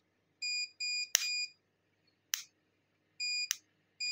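An electronic piezo beeper gives short high beeps, three in quick succession early on and more near the end. Sharp snaps of sparks come in between as a wire is touched to a charged capacitor's terminal and discharges it.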